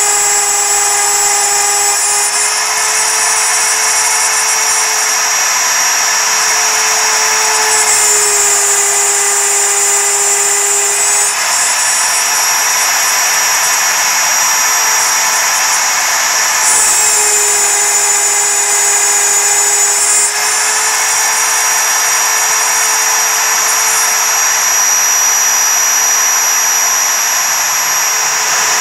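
A CNC router spindle running at full speed while a single-flute end mill cuts 6061 aluminium: a steady, loud, high whine with the grinding of the cut. The pitch of the tones shifts several times as the tool moves through the logo path.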